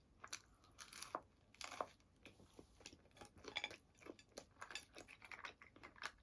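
Faint chewing of a pizza slice: a string of small, irregular crunches and mouth clicks.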